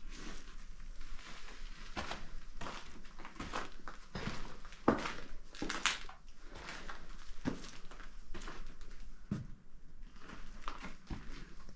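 Irregular footsteps with crunching and knocking, the loudest steps about halfway through.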